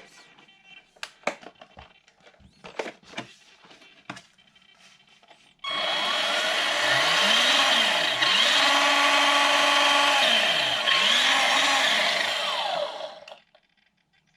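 Electric motor and geared drivetrain of a Flyhal FC610 1/10 scale RC truck run up under throttle, whining as it spins up and down three times with a longer hold at speed in the middle, then cutting off. A few light clicks and taps come before it starts.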